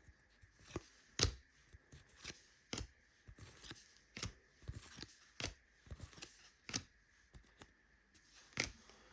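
Trading cards handled one after another. Each card gives a short snap or slide of card stock as it is flipped or dealt off the stack, at an irregular pace of about two a second.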